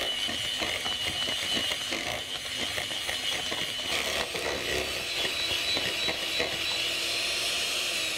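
Handheld electric mixer running steadily, its twin wire beaters churning through thick mascarpone and egg-yolk cream in a stainless steel bowl, a high motor whine over a fast rattle of the beaters. The whine steps slightly higher about four seconds in.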